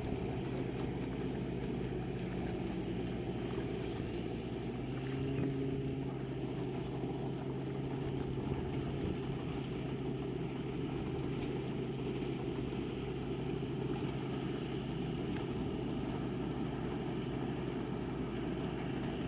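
Rice-harvesting tractor's engine running steadily, with a constant low hum.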